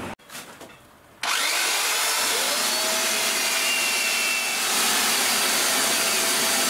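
Belt sander with a dust-extraction vacuum hose attached, sanding the edge of a wooden strip. It starts about a second in, a rising whine as the motor spins up, then runs steadily.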